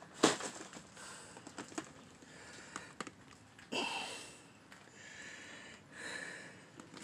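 Hands rummaging through a plastic tote of boxes and cases: cardboard and plastic rustling and clicking, with a sharp knock just after the start and a short squeak-like sound about four seconds in.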